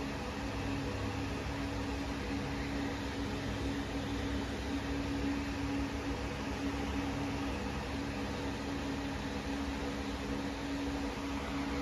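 Electric fan running with a steady hum and even hiss, over one constant low tone.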